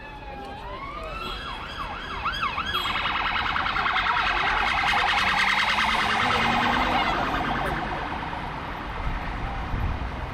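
Police van siren passing close by. A falling wail switches to a quick yelp about a second in, then to a very fast pulsing warble from about three seconds. It is loudest mid-way and fades toward the end.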